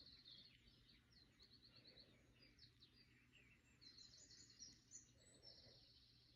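Faint chirping of small birds: short high calls and quick trills of repeated notes, several times, over a steady low hum.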